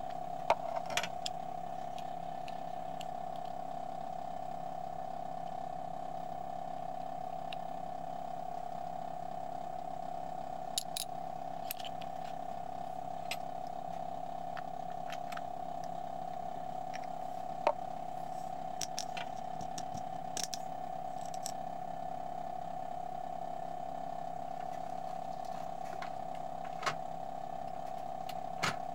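Steady, even machine hum with a few sharp small clicks scattered through it, from a hand-engraving bench as a graver works a nickel.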